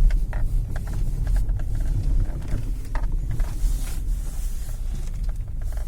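Low, steady rumble of a Citroen C3 heard from inside the cabin as it drives slowly on an icy street, with scattered light clicks and knocks.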